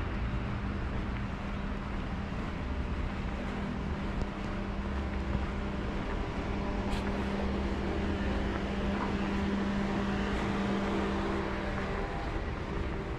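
A moving car's engine and road noise: a steady drone with a low hum that fades out near the end.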